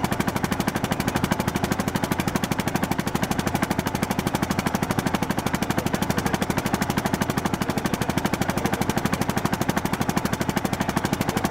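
A boat's engine running at a steady speed, with a rapid, even knocking beat.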